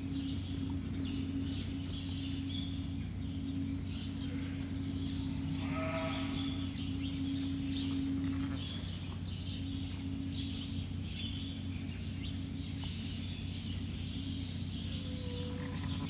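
A sheep bleats once, about six seconds in, over a steady low hum and many short, high bird chirps.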